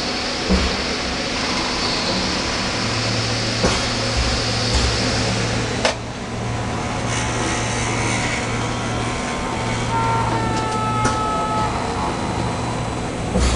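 Machinery running with a steady mechanical noise. A low motor hum comes in about three seconds in and drops out near the end, with a few sharp clicks along the way and a brief two-tone whine shortly before the hum stops.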